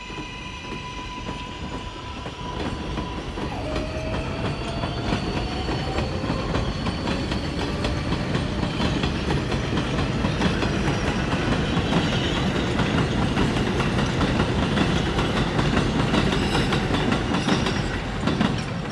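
Kawasaki R188 subway train accelerating away from an elevated platform. Its traction motors whine on a steady tone that drops in pitch a few seconds in and then glides upward as the train gathers speed. The wheels clatter over the rail joints, the running noise builds as the cars pass and falls off as the last car goes by near the end.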